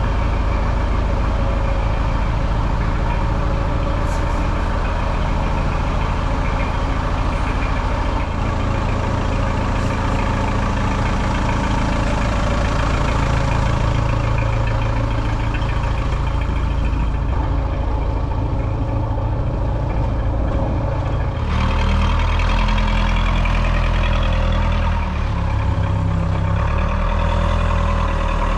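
A large engine running steadily, its sound changing abruptly about three-quarters of the way through.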